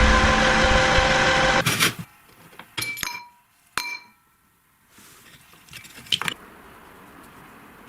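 Electric meat grinder motor running loud and steady, then switching off about a second and a half in. A few sharp metallic clinks with a short ring follow, then a brief clatter.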